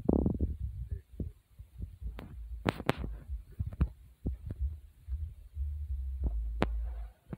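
Low thumping rumble of a phone's microphone being jostled as it is carried while walking, with a few sharp snaps and cracks of footsteps on scattered debris.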